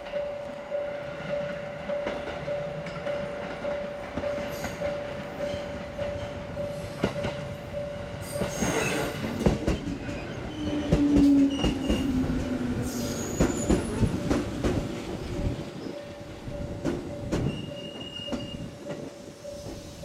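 Japanese level-crossing alarm ringing in a fast, even repeating ding throughout, as a JR 205-3100 series electric train pulls into the station. Its wheels clatter over the rail joints and squeal, loudest around the middle.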